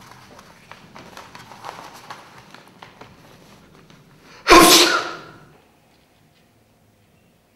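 A person sneezes once, loudly, about four and a half seconds in, after faint clicks and rustling.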